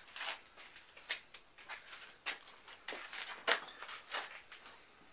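Fillet knife scraping and slicing through a fish on a wooden cutting board: a run of irregular short scrapes and clicks.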